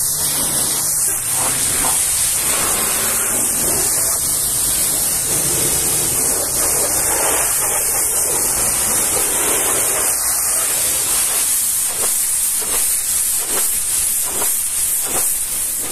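High-pressure washer jet spraying water onto a Volvo FH500 truck cab's side panels, cab step and wheel arch: a steady loud hiss of spray hitting metal.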